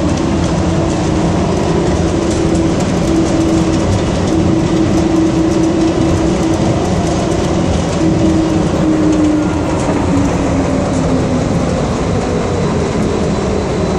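Inside a moving airport monorail car: steady rumble of the train running, with a motor whine that falls slowly in pitch near the end as the train slows.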